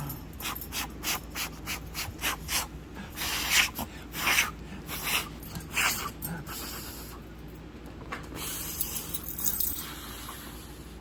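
A puppy sniffing and snorting in quick short bursts, about two or three a second, with a few longer snorts around the middle; fainter rustling follows near the end.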